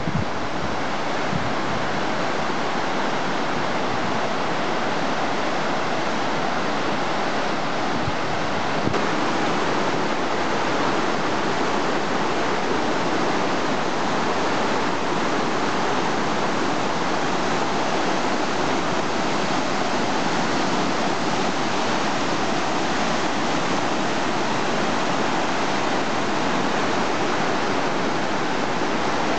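Snowmelt-swollen mountain river in muddy flood, rushing steadily over rocks and rapids.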